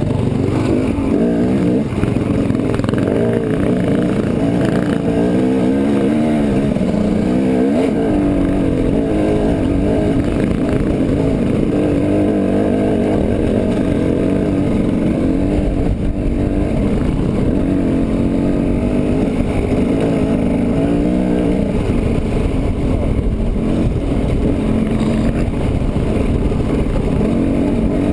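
Dirt bike engine running as it climbs a rocky trail, its pitch rising and falling continuously with the throttle.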